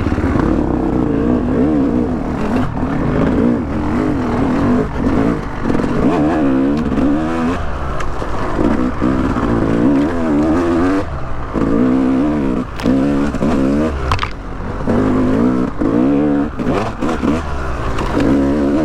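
Yamaha YZ250X two-stroke dirt bike engine under way on a trail, revving up and down over and over as the throttle is worked, heard from inside the rider's helmet.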